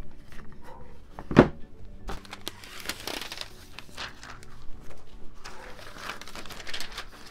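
Sheet of Monokote heat-shrink plastic covering film crinkling as it is handled, in rustling spells about three seconds in and again near the end. One sharp knock on the workbench about a second and a half in is the loudest sound.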